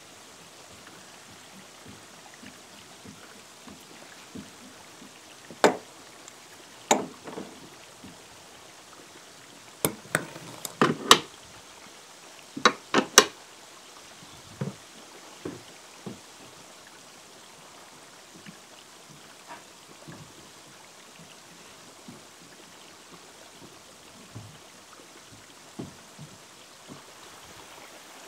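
Hand tools knocking on wooden posts and boards: a few single sharp knocks, then a quick cluster of knocks in the middle, over a steady faint trickling of water.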